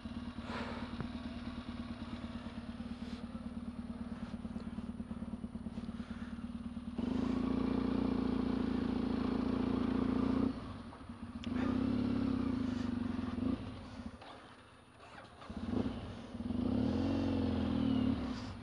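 Large trail motorcycle engine running at a steady low speed, then growing louder about seven seconds in and revved in several short bursts whose pitch rises and falls.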